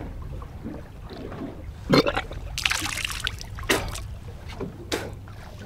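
Boat at sea: a steady low rumble, several sharp knocks about a second apart from two seconds in, and a short splashing hiss about two and a half seconds in.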